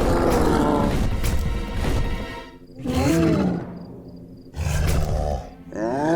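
Cartoon soundtrack music with several roar-like growls that rise and fall in pitch, the first at the start, another about three seconds in and another near the end.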